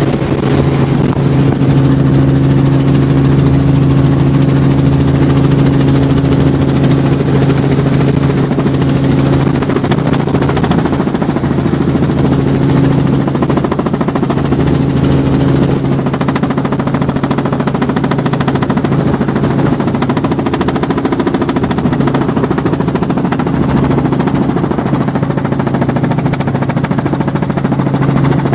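Robinson R44 Raven II helicopter in flight, heard from inside the cabin: the steady drone of its piston engine under the rapid, even beat of the rotor blades.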